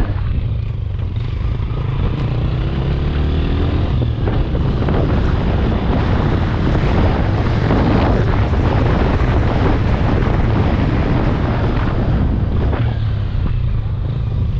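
Small motorcycle engine running while riding, heard from the rider's seat, with wind rushing over the microphone. The engine note climbs for a moment about two to four seconds in.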